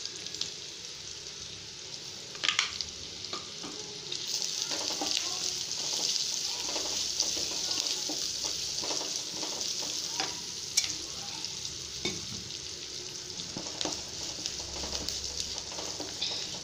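Onion, curry leaves and a dried red chilli sizzling in hot sesame oil in a steel kadai while a wooden spatula stirs them, with occasional sharp taps and scrapes of the spatula against the pan. The sizzle grows louder about four seconds in.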